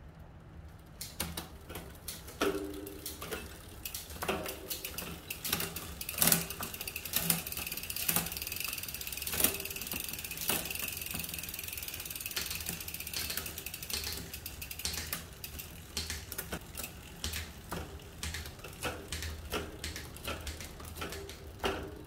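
A mountain bike drivetrain is spun by hand on a work stand: the chain runs over the 12-speed cassette and the rear derailleur pulleys with a steady whir and rattle. Irregular clicks and clunks come through as the gears are shifted. The shifting is being tested after the loose cassette was refitted and tightened.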